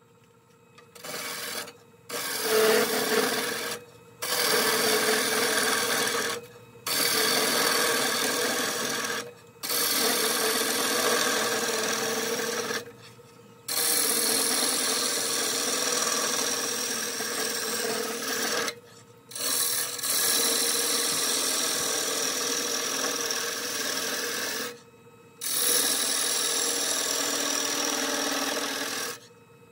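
A lathe tool cutting into the hard ash wood inside a spinning bowl blank, a loud rasping scrape. It comes in about eight passes of a few seconds each, with short breaks where the tool comes off the wood.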